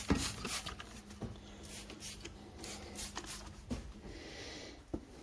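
Diesel fuel pump parts being handled and cleaned: light clicks and knocks of small metal parts, with a short hiss of spray cleaner about four seconds in.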